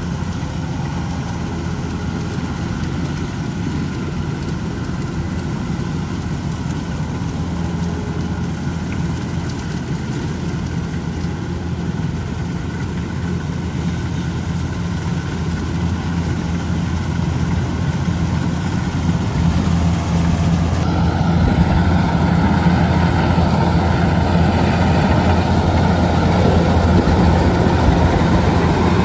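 Kubota DC-105X rice combine harvester running steadily while it cuts rice. It grows louder over the last third as it comes close.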